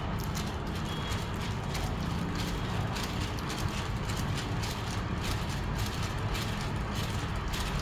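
Flapping wings and linkage of a homemade ornithopter clattering rapidly, a run of irregular clicks several times a second over a steady low rumble.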